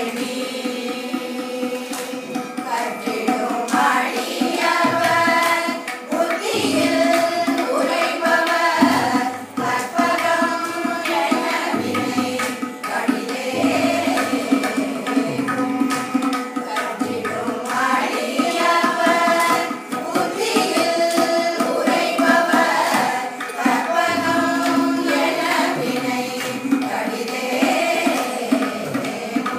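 A group of women singing a devotional song together, accompanied by tabla strokes.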